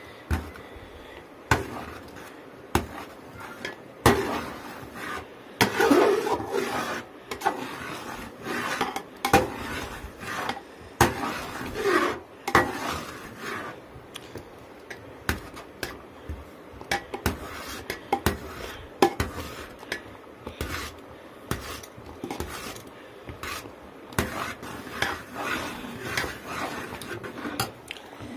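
Metal ladle stirring a thick mixture in a large metal cooking pot, scraping along the bottom and sides and knocking against the rim at irregular moments, with a few longer scrapes.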